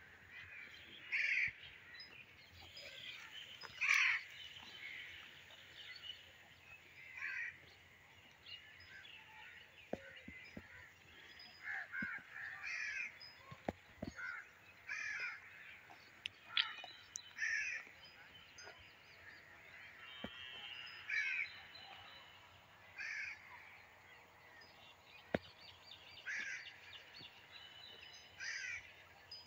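Crows cawing: short, harsh calls repeated every second or two, with a few faint clicks between them.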